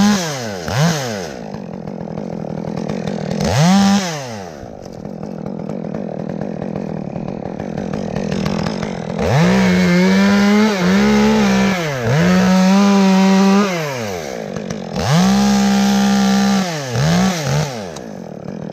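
Two-stroke chainsaw cutting a tree limb: a few quick revs, then held at high revs through the cut from about nine seconds in, dipping briefly several times, with a second high-rev stretch near the end.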